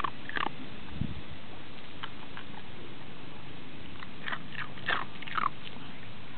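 Shetland sheepdog crunching ice chips in its mouth: a few scattered sharp crunches, then a quicker run of them about four to five seconds in.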